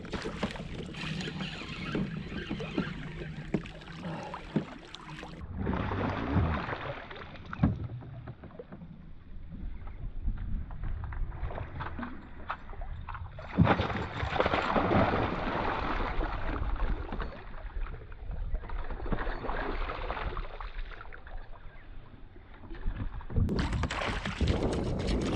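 Water splashing and churning beside a kayak as a hooked bass thrashes at the surface, loudest about halfway through, with wind on the microphone.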